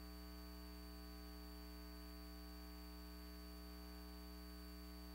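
Near silence: a faint, steady electrical hum with a light hiss, the background noise of the recording between segments.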